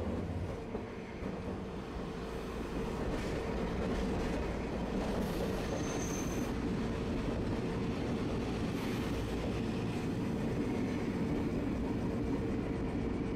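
Tosaden streetcar running along its track, heard from inside the car: steady rolling noise with a constant motor hum, and a brief high wheel squeal about six seconds in.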